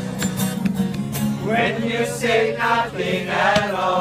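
Live music: a guitar played with plucks and strums, with singing coming in about one and a half seconds in.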